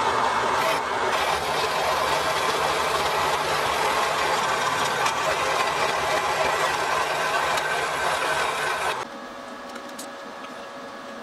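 Vertical bandsaw cutting through a small metal bracket: a loud, steady noise of the blade in metal over the hum of the saw's motor. The cutting stops about nine seconds in, leaving a fainter steady hum.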